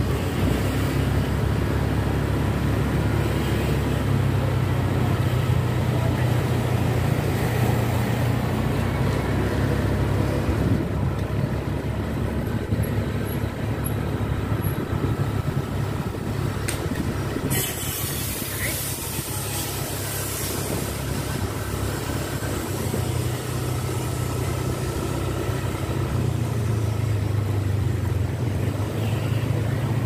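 Motorcycle engine running steadily while riding along a street, mixed with wind and road noise. The engine hum eases off in the middle and picks up again near the end.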